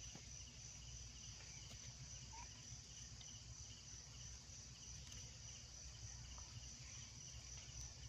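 Faint insects: a steady high drone with a softer chirp repeating evenly a couple of times a second.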